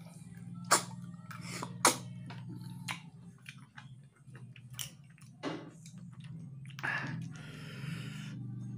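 Mouth sounds of eating tutut, small freshwater snails in spicy sauce, sucked out of their shells: sharp sucking pops every second or so, with chewing between them and a longer hiss about seven seconds in, over a low steady hum.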